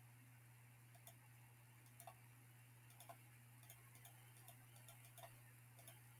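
Near silence with faint, irregular clicks about once a second, the clicks of a computer mouse applying paint to faces in a 3D model, over a low steady hum.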